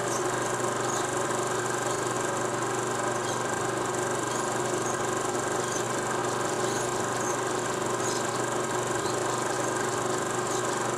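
Steady mechanical hum and whir with hiss, unchanging throughout, with a few faint scattered ticks.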